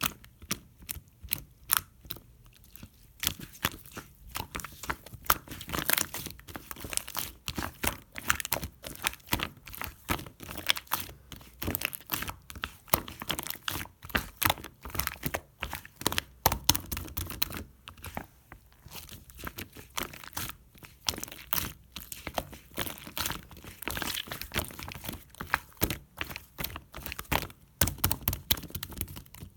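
Slime being squeezed, stretched and folded by hand, giving a dense, irregular stream of sharp crackling clicks and pops.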